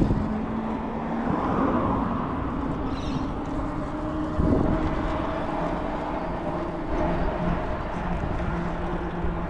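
A motor vehicle running steadily with a low hum and road noise, swelling briefly about four and a half seconds in.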